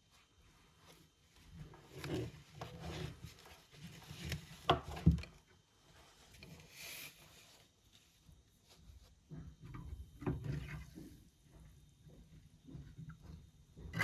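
Parts of an old bullet reloading tool being handled and worked by hand: irregular knocks and rubbing in two spells, with a short hiss in between.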